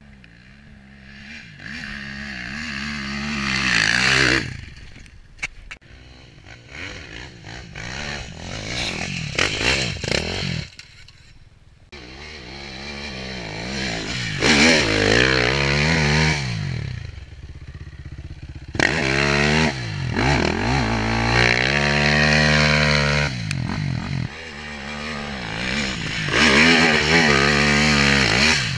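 Enduro dirt bike engine revving hard in repeated bursts, its pitch climbing and falling with the throttle as it claws up a steep sandy slope, with a few sudden breaks between the bursts.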